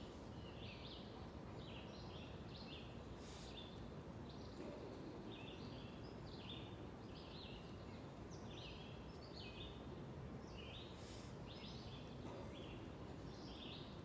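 Faint woodland birdsong: many short, high chirping notes from several birds, repeating over a steady low background noise. Two brief hissing sounds come about three seconds in and again near eleven seconds.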